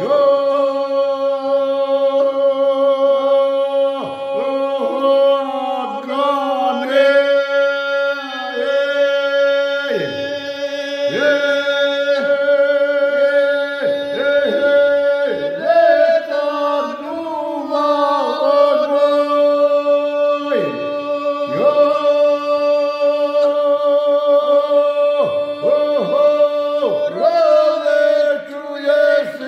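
A man and a woman singing a traditional western Serbian izvika song a cappella in two parts, loud voices holding long tones with glides into the notes and short breaks between phrases.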